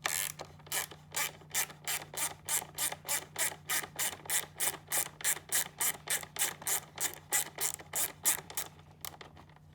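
Ratchet driving a T20 Torx bit, clicking in an even rhythm of about three clicks a second as a screw is backed out; the clicking stops near the end.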